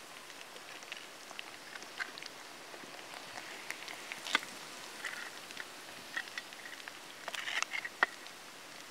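Chicken pakoras deep-frying in a wide pan of hot oil: a steady sizzling crackle with scattered small pops. A metal skimmer knocks sharply against the pan about halfway through and again near the end.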